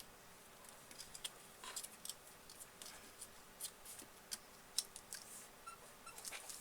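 Faint, irregular small clicks and scrapes of hands handling the tablet's battery, double-sided tape and plastic internals on a work surface.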